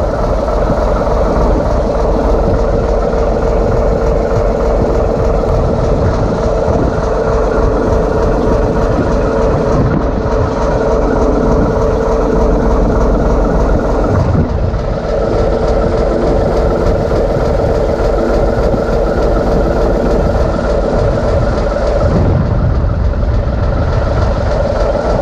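TEM2 shunting locomotive's diesel engine running steadily under load, its generator feeding a water rheostat at about 170 kW during running-in after a major overhaul. A steady mid-pitched tone runs through it and weakens about fourteen seconds in, and wind buffets the microphone.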